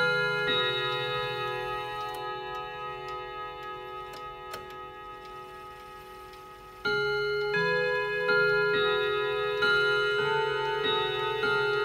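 ODO 62 wall clock's eleven hammer-struck rod gongs chiming a tune. The opening notes ring on and slowly fade for several seconds while the clock's faint ticking shows through. About seven seconds in, the hammers start a new phrase, striking about twice a second.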